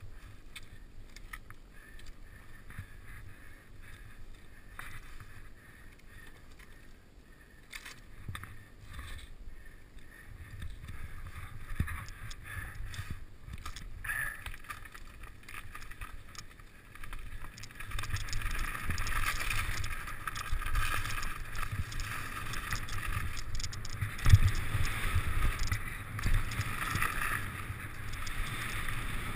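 Mountain bike riding downhill on a dirt trail, heard from a helmet camera: tyres rolling and the bike rattling over the ground, with wind on the microphone. It gets louder and rougher from a little past halfway as the speed builds, with one sharp knock about three-quarters of the way through. Before that there are quieter scattered clicks of the bike being handled.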